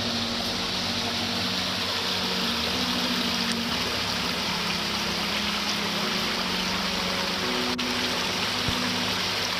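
Small rocky mountain stream running over a low cascade between boulders: a steady, even rush of water.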